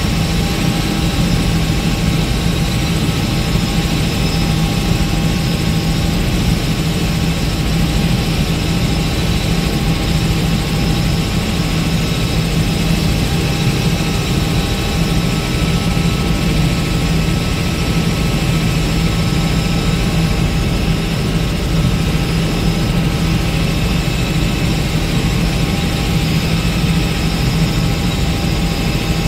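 Helicopter in flight heard from inside the cabin: steady rotor and engine noise with a strong low hum and a few steady tones above it, unchanging throughout.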